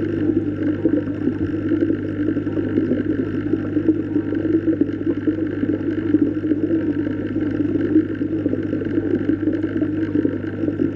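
Underwater ambience: a steady low hum and rushing that stays even throughout, with no distinct events.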